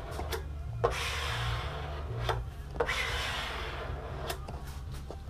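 A wet clear traction-grip sheet being smoothed onto a board's deck by hand in overlapping strokes: a soft rubbing, broken by short pauses between strokes, over a faint low hum.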